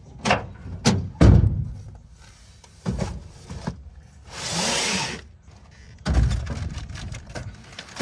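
Cardboard boxes and packages being dropped and set down in a pickup truck's plastic bed liner: a string of hollow thumps and knocks, with a box scraping across the bed about halfway through.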